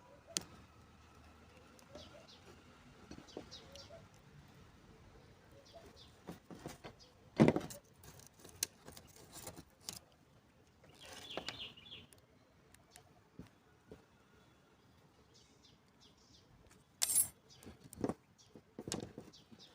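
Scattered metallic clinks, knocks and rattles of battery cable and terminal parts being handled and worked by hand, with one louder knock about seven seconds in and a few more near the end.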